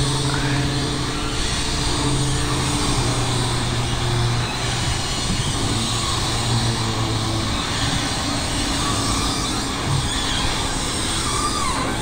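Hydraulic pump of a pickup-mounted motorcycle lift running with a low, steady hum as it raises and levels a trike motorcycle onto the truck bed, over a constant rushing noise. The hum's pitch shifts slightly a few times.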